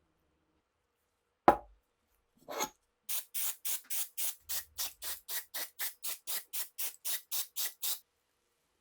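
A sharp knock, then a short scrape, then about twenty quick, even rubbing strokes, about four a second, of a hand tool working a rifle part during restoration.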